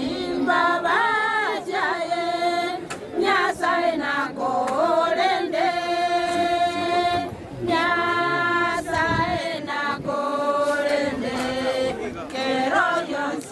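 A group of mourners singing a hymn together, unaccompanied, with long held notes, and a few short knocks among the singing.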